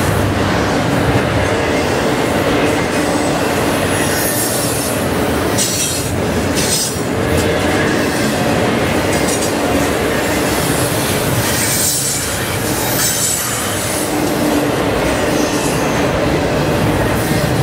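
Double-stack container cars of a freight train rolling over a steel trestle: a loud, steady rumble of wheels on rail, with high-pitched wheel squeals coming and going.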